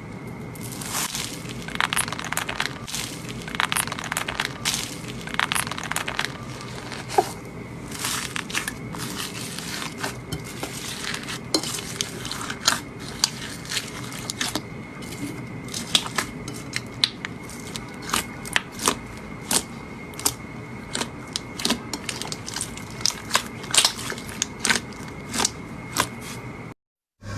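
Slime being squished and pressed by hand, giving an irregular run of sharp crackling pops and clicks.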